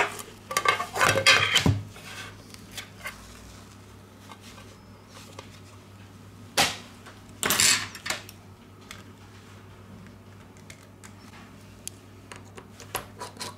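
Plastic clicks and scrapes of a ZTE Nubia M2 smartphone's back cover being lifted off and handled, with a sharp click and a louder scraping rustle about halfway through and scattered light clicks near the end, over a faint low hum.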